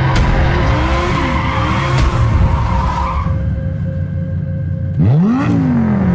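Lamborghini Huracán's V10 engine revving up and down while the car drifts, its tyres squealing steadily. About five seconds in the squeal stops and the engine revs sharply up and falls away, the loudest moment.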